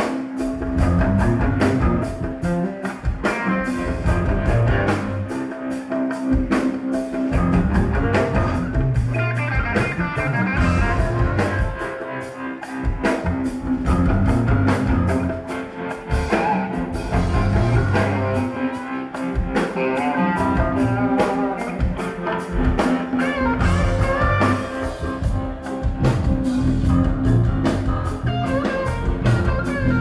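Rock band playing live: electric guitar lines over a steady drum-kit beat in an instrumental jam, heard from the audience.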